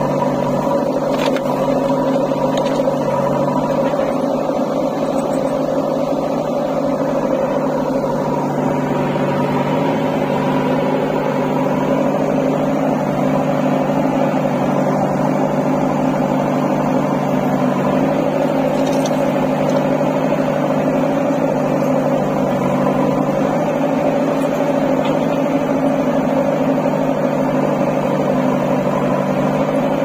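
JCB 3DX backhoe loader's diesel engine running steadily at working revs while its backhoe arm loads dirt into a tractor trolley, heard close up. The engine sound grows fuller about eight seconds in.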